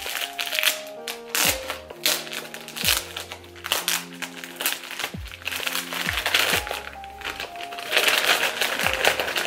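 Crinkling and rustling of the wrapping being pulled off a book, densest near the end, over background music with a beat.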